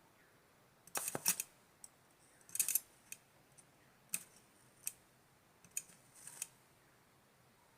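Short, sharp crackling snaps of a 12 V battery arc as the carbon electrode of a homemade battery welder touches and sparks against the metal, in brief bursts about once a second.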